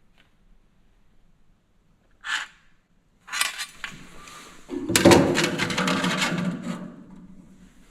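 Hard objects being handled: a dense run of clinks, knocks and rattling that starts about three seconds in, is loudest in the middle and dies away near the end.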